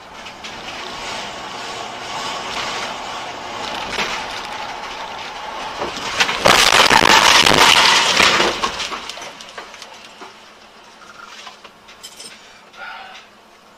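Car collision heard from inside a dash-cam car. Road and engine noise builds while driving, then about six and a half seconds in a loud crash lasts about two seconds, with cracking and breaking. Afterwards it is quieter, with a few knocks.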